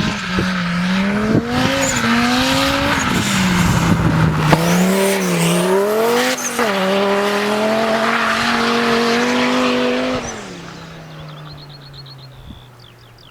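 Straight-piped 2.2-litre turbocharged Audi five-cylinder (AAN) engine in a racing buggy, running hard under load, its note rising and falling with throttle and gear changes. About ten seconds in it fades sharply to a faint, lower steady drone.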